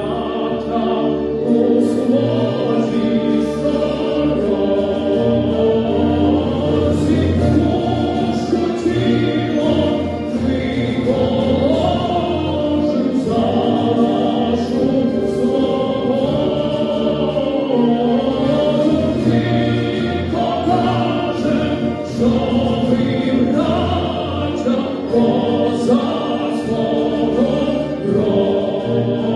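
A choir singing, with no pauses.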